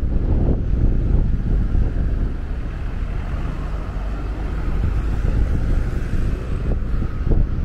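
Wind rumbling and buffeting on the microphone over the noise of street traffic, with a passing vehicle swelling in the middle.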